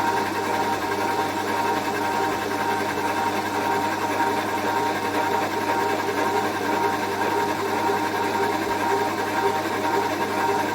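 Milling machine running a boring bar through a bore in a traction engine weighshaft bracket casting: a steady, even mechanical whir with no breaks.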